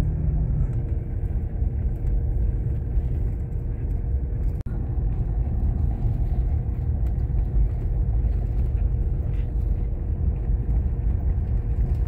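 Car driving on a town street, heard from inside the cabin: a steady low rumble of engine and tyres with a faint steady hum. The sound drops out for an instant about four and a half seconds in.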